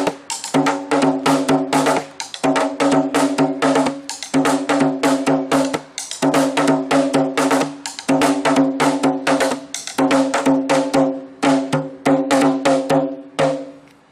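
A single drum played in rapid sharp strokes that ring at the same pitch, in repeating phrases of about two seconds with short breaks between them. The playing stops just before the end.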